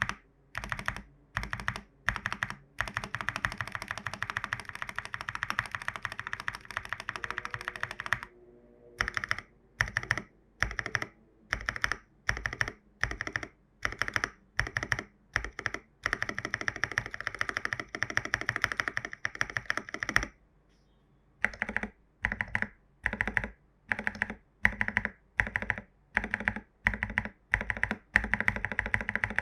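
Long stabilized keys on a mechanical keyboard (lubed Owlab stabilizers, lubed Holy Panda switches, MT3 keycaps) pressed over and over in a stabilizer test: single presses about two a second, with two long stretches of rapid tapping.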